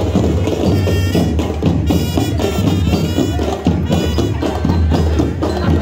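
School drum band playing: a dense, steady beat of snare and bass drums with sharp stick and rim clicks, over the voices of a crowd.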